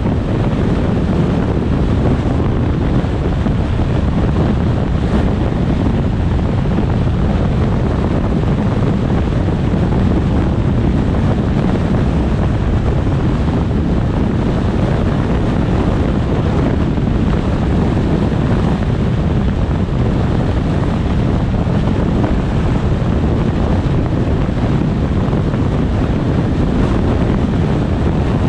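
Wind buffeting the camera's microphone: a loud, steady low rumble with no breaks.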